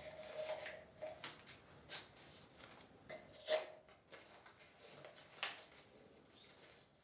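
A cardboard box and a small paper packet handled and peeled open by hand: light rustling with scattered small clicks and knocks, and one sharper knock with a short ring about three and a half seconds in.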